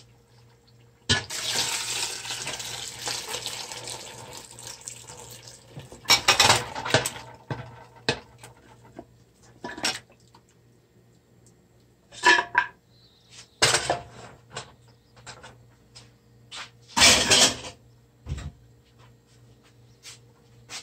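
Stock poured from a pressure cooker into a large metal pot of paya curry, a splashing pour that starts suddenly about a second in and fades over several seconds. It is followed by several sharp metal clanks and clatters of the cooker and a metal spoon against the pot.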